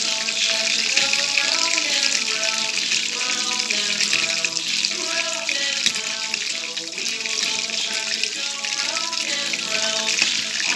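Chicken pieces frying in hot oil in a wok, a steady sizzle, with background music playing over it.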